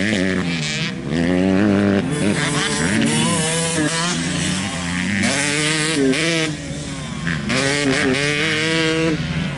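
Several off-road racing engines, ATVs and a dirt bike, revving hard on a dirt track. Their pitch climbs and falls again and again as the riders work the throttle and shift, with more than one engine heard at once.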